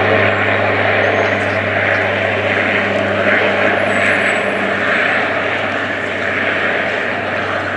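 De Havilland Dash 8-400 turboprop airliner running on the runway, its propellers giving a loud, steady drone over a low hum. The higher part of the hum fades about five seconds in, and the sound eases slightly toward the end.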